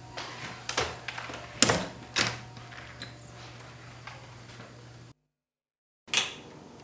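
Knocks and bumps of a glass patio door and footsteps as people come in, the loudest a sharp knock about a second and a half in. After a second of dead silence, a wall light switch is flicked.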